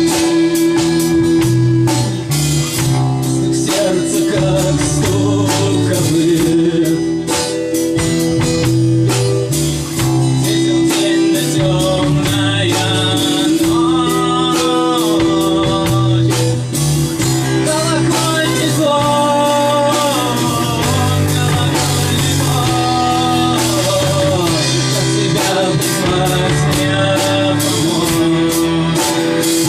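Rock band playing: electric guitar over a drum kit, with a melody line sliding between held notes through the second half.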